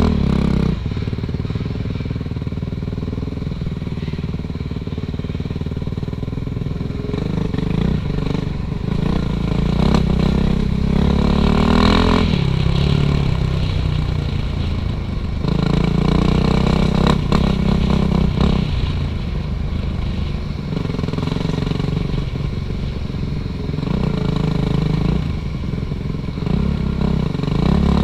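Suzuki RM-Z450 dirt bike's single-cylinder four-stroke engine under way on a trail, the throttle opening and closing so its pitch rises and falls again and again, with several louder surges of acceleration.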